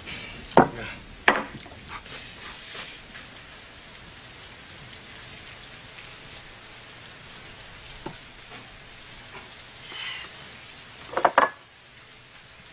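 Steady hiss of rain from a storm, with two sharp knocks near the start and a quick cluster of clicks near the end.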